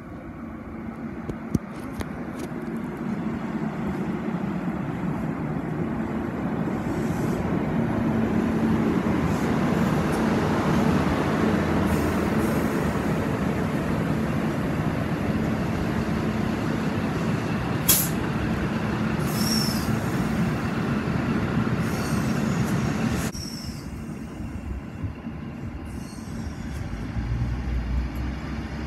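A NSW TrainLink Xplorer diesel railcar set runs in along the platform, its diesel engine and wheels on the rails growing louder and then steady. There is a sharp click and a couple of brief high wheel squeals. About two-thirds of the way in, the sound drops suddenly to a quieter, steady diesel running.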